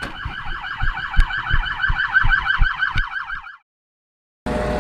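Police car siren sounding a rapid yelp, about six sweeps a second, over low thumps, then cut off abruptly about three and a half seconds in. A steady hum begins near the end.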